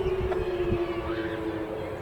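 Whelen WPS-2807 outdoor warning siren sounding one steady tone that slides slowly down in pitch as it winds down at the end of its alert cycle, with low rumble on the microphone.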